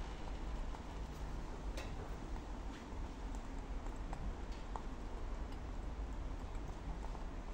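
Sparse faint ticks and pops from a hot metal ball cooling in a steaming wine glass of eggs, over a steady low rumble.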